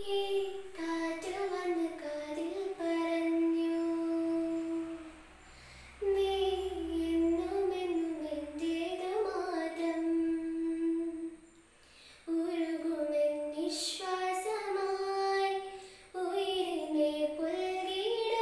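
A girl singing solo, in slow phrases with long held notes and short breaks between them.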